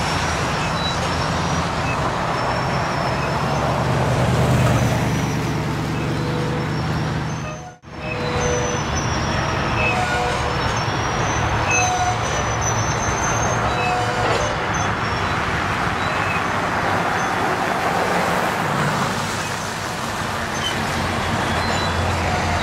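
Loaded grain train of covered hopper cars rolling past at steady speed: a continuous rumble of wheels on rail with scattered short, high squeals from the wheels, mixed with a car driving by on the wet road. The sound briefly cuts out about a third of the way in.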